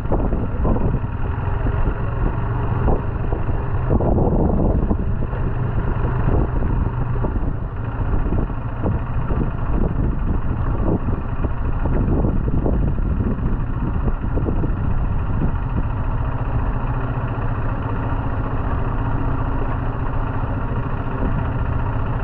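Motorcycle engine running at a steady pitch, with uneven, choppy noise over it for the first two-thirds that settles into a steadier sound after that.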